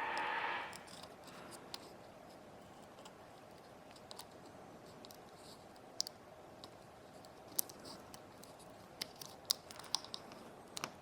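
Sharp little clicks and taps of small hand tools on an iPod nano's case and parts during a teardown, scattered and coming more often in the last few seconds. A steady whirring noise cuts off suddenly within the first second.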